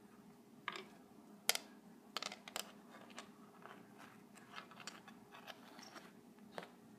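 A cat pawing at a rug, claws scratching: a scatter of light scratches and sharp clicks, the sharpest about one and a half seconds in and a quick cluster near the middle.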